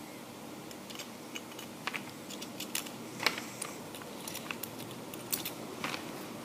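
Plastic toy packaging and parts handled close up: irregular crinkles and sharp clicks, one louder click about halfway through.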